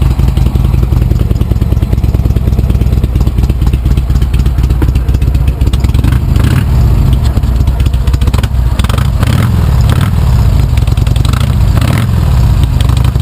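2001 Harley-Davidson Sportster 883's carbureted air-cooled V-twin running loud on choke just after a cold start. It idles steadily, then in the second half the throttle is blipped several times, the pitch rising and falling with each blip.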